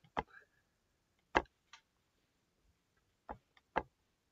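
Computer mouse clicking: a handful of sharp single clicks, a second or two apart, with quiet between.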